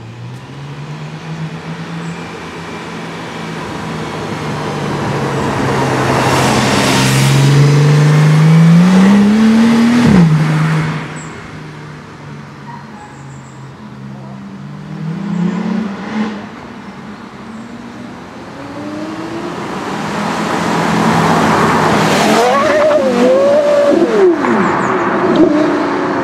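Sports car engines passing at close range: one engine climbs steadily in pitch and loudness to about ten seconds in, then drops off sharply. Later a Porsche Carrera GT's V10 revs hard and accelerates away, its pitch jumping up and down near the end.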